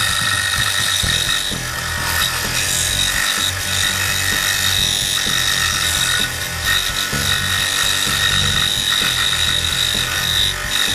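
Performax scroll saw running steadily, its reciprocating blade cutting a skull-and-crossbones shape out of a thin piece of cedar.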